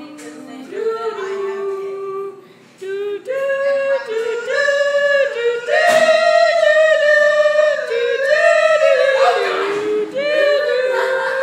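Unaccompanied singing voices, long held notes that step up and down in pitch. There is a brief pause a little past two seconds in, and the singing grows louder from about four seconds in.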